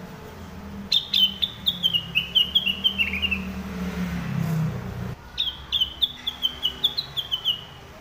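Caged rengganis (cucak wilis), a bulbul, singing two fast phrases of sharp repeated chirping notes, about five a second, each phrase stepping down in pitch. A low rumble in the background runs under the first phrase and stops just before the second.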